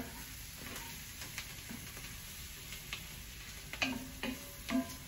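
Flour-coated beef cubes sizzling as they fry in a spice and onion paste, stirred with a wooden spoon, with a few short knocks of the spoon against the pot near the end.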